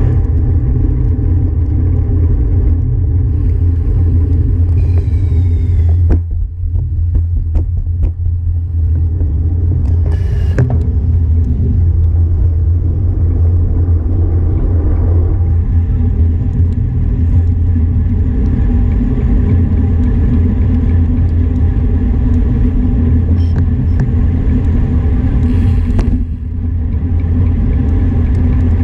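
Steady low rumble of wind buffeting an action camera's microphone while riding a bicycle, mixed with tyre noise on asphalt, with a few sharp knocks between about six and eleven seconds in.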